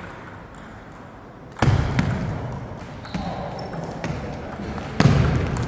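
Table tennis ball ticking off bats and table in quick succession, a few hits a second, in a large echoing hall. Two much louder thuds stand out, about a second and a half in and again near the end, each ringing on briefly in the room.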